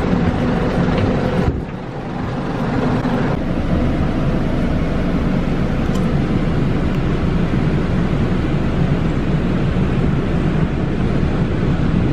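Steady engine and road noise inside a bus's passenger cabin, with a brief drop in level about two seconds in.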